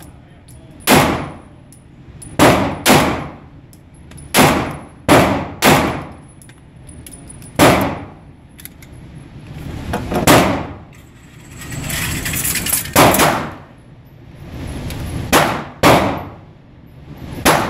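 About a dozen handgun shots fired in an indoor shooting range, some single and some in quick pairs a half-second apart, each followed by a short ringing echo off the enclosed range.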